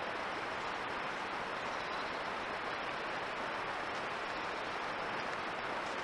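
Steady, even hiss with no distinct sounds in it.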